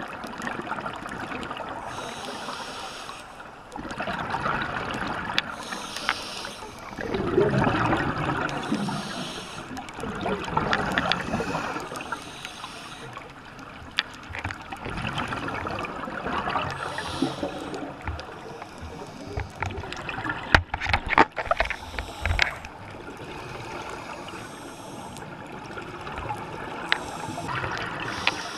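Scuba diver breathing through a regulator underwater: hissing inhalations alternating with bubbling exhalations every few seconds. A cluster of sharp clicks comes about twenty seconds in.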